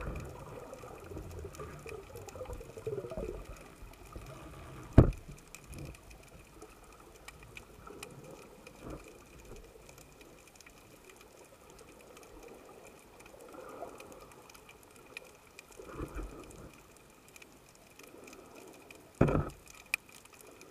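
Underwater sound picked up through a camera's waterproof housing during a spearfishing dive: a faint rush of water with scattered small clicks, a sharp knock about five seconds in and a louder thump near the end.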